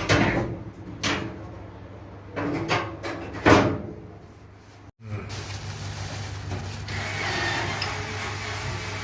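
Metal oven door of a gas cooker being handled on its newly replaced hinges: several knocks and clunks in the first half. After an abrupt cut about five seconds in, a steady hum and background noise.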